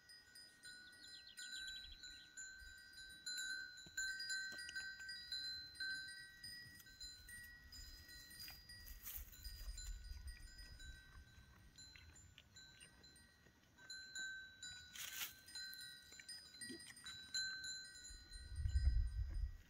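Chimes ringing continuously, several high tones overlapping and swelling in and out. A low rumble comes near the end, the loudest moment, with a sharp click a few seconds before it.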